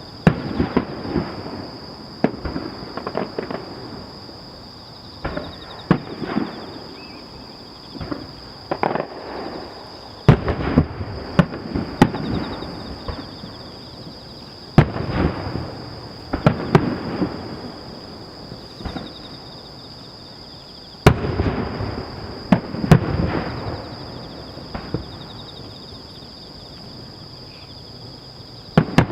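Fireworks display: aerial shells bursting in clusters of sharp bangs, each followed by a rolling echo, with quieter lulls between volleys. A steady high-pitched whine runs underneath.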